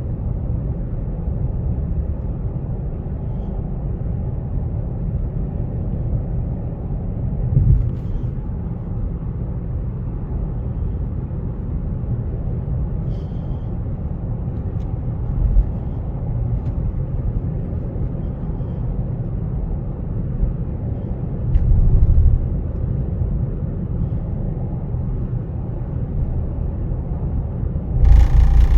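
Cadillac CTS Sport Wagon on the move: a steady low rumble, with short louder swells about 8, 15 and 22 seconds in and a louder, sharper burst near the end. Somewhere in it is an abnormal noise that the owner cannot identify.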